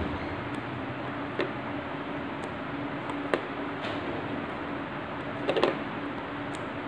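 Steady background hiss with a faint hum, and a few light taps as a paint-dipped tree-twig stamp is dabbed onto paper, a quick cluster of them near the end.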